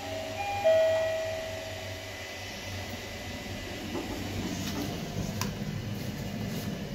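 Mitsubishi GPS-III elevator's arrival chime: a two-note high-then-low ding-dong about half a second in, the low note ringing on for a second or so, signalling the car's arrival at the floor. Afterwards the doors open amid a steady low hum, with a few light clicks.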